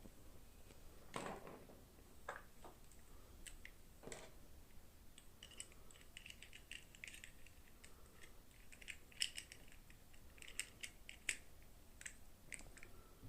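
Plastic toy packaging and small doll parts being handled during an unboxing: a few soft knocks, then many small, sharp plastic clicks and crinkles in the second half.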